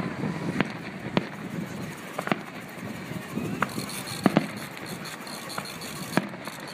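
Aerial firework shells bursting: a string of about eight sharp bangs at irregular intervals.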